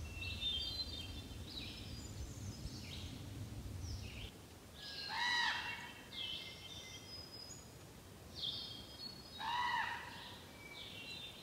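Wild birds singing in the woods: a run of short, high chirps throughout, with a louder, lower arched call about five seconds in and again about nine and a half seconds in. A low rumble underlies the first four seconds.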